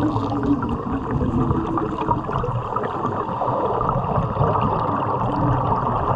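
Underwater arc welding: a steady, dense bubbling and crackling of gas streaming up from the arc.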